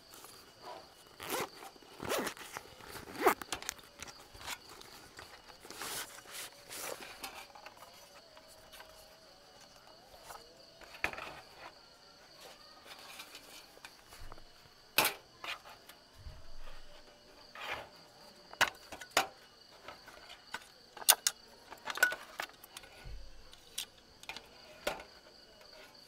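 A zipper on a fabric stove case being undone, then the case rustling and a series of sharp metal clicks and clacks as a folding camping gas stove is taken out and its serrated pot supports are swung open. A faint steady high insect drone runs behind.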